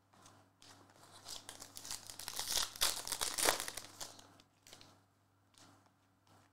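Shiny plastic trading-card pack wrapper crinkling as it is torn open and the cards are pulled out, loudest in the middle, followed by a few faint clicks of cards being handled.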